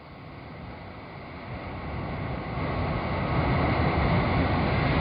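Airplane approaching, its rumbling engine noise growing steadily louder, with a faint high whine coming in near the end.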